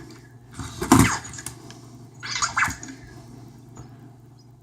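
Anki Vector toy robot making its short electronic sounds and moving during a game of keep-away, two brief bursts about a second in and around two and a half seconds in.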